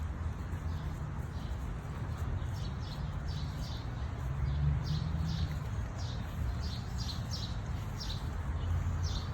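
Birds chirping in quick, repeated short calls, over a steady low rumble.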